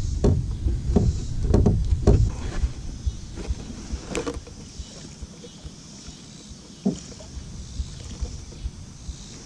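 Hollow plastic milk jug handled right against the microphone while fishing line is tied to its handle: irregular knocks and rubbing, heaviest in the first two seconds, then quieter with a few sharp clicks.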